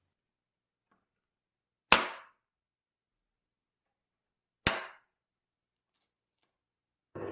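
Two sharp snaps about three seconds apart, each dying away quickly: a scored clear plastic sheet breaking along its score line.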